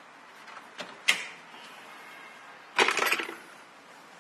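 Plastic decorative trim cover being pried off a roll bar: one sharp plastic snap about a second in, then a quick cluster of cracking clicks shortly before three seconds in as its clips let go.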